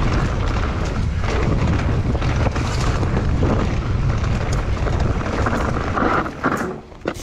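Wind buffeting the camera microphone over the rumble of a mountain bike's tyres and frame riding fast over rocky trail, with repeated knocks and rattles as it hits rocks. It eases off about seven seconds in.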